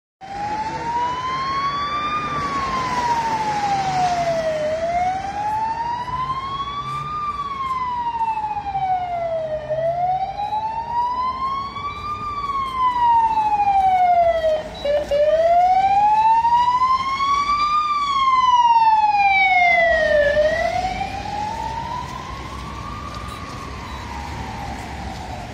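Ambulance siren sounding a slow wail, its pitch rising and falling about every five seconds. It grows louder, is loudest past the middle as it passes, and fades toward the end, over the low noise of city traffic.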